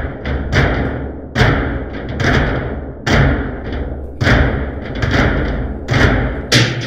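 Electronic music track: heavy drum hits about once a second, each with a deep low thump and a long hissing tail, with lighter hits between them.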